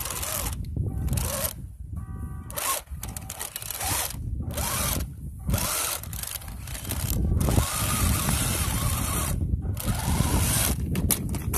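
Small RC crawler tank's electric drive motors and metal tracks running in repeated stop-start spells of about half a second to two seconds as it climbs loose dirt, over a steady low rumble.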